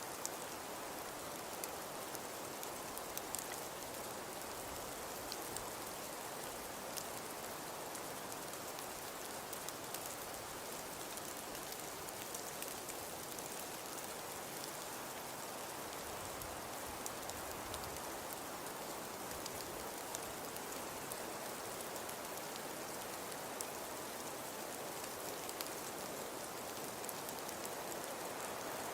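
Steady snowfall ambience: an even hiss of falling precipitation, flecked with many fine, scattered ticks of flakes or pellets striking a surface.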